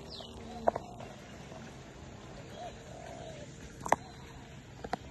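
Handling noise from a phone held by a monkey: fur rubbing over the microphone and a few sharp knocks and taps, the loudest about four seconds in. A faint high falling chirp sounds right at the start, and a soft short call about two and a half seconds in.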